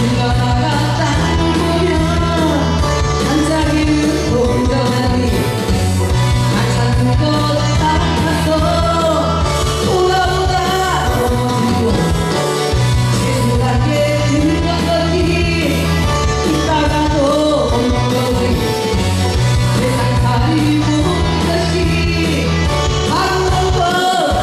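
A woman singing a Korean rock song live into a handheld microphone over instrumental accompaniment with a repeating bass line.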